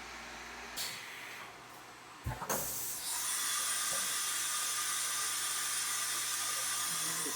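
A click and a couple of dull knocks, then a steady high-pitched hiss at a CNC milling machine that starts abruptly about three seconds in and holds level.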